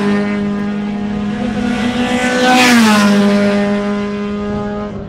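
Race car engines running hard as sedans pass close by on a circuit; about two and a half seconds in, the loudest car goes past and its engine note drops in pitch.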